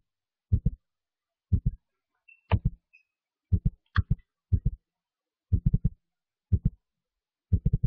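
Low, dull thumps in quick pairs and small clusters, coming about once a second with silence between, in a heartbeat-like rhythm.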